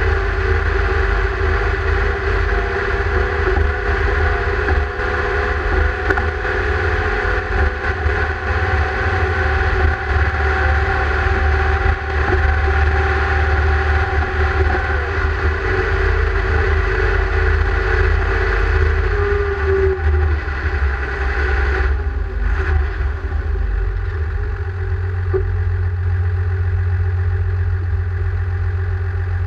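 Deutz-Fahr Agrosun tractor's diesel engine running steadily under way. About 21 seconds in, the revs drop and the engine settles to a steadier, lower note.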